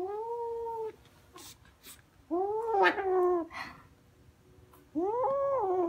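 Kitten growling over a fluffy toy held in its mouth, three long, high moaning growls that rise and fall in pitch, near the start, in the middle and near the end. It is a possessive growl: the kitten won't let go of its prey.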